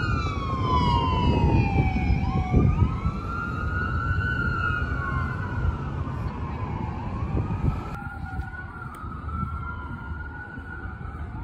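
EMS ambulance siren wailing as it passes, its pitch dropping over the first two or three seconds as it goes by. Then fainter, slower siren wails rise and fall, at times two overlapping, over steady traffic noise.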